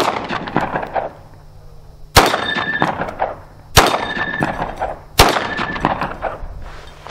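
Four shots from a 9mm pistol firing steel-cased ammunition, the first right at the start and the others about a second and a half apart, each trailed by about a second of echoes. After the last three a short metallic ring from a steel target plate being hit.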